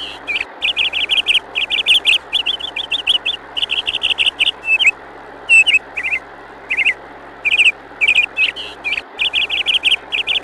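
Birds chirping in short bursts of quick trills, over a steady hiss.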